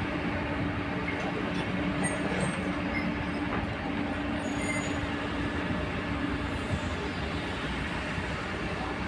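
Diesel hydraulic excavators working, the nearest a Komatsu PC200 digging and swinging a loaded bucket: a steady engine and hydraulic noise with a steady hum-like tone that drops away near the end.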